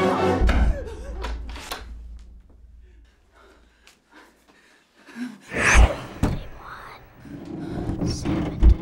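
Deep thud about half a second in that rumbles away over a couple of seconds, then near silence, then sudden loud bangs a little before six seconds and again near the end.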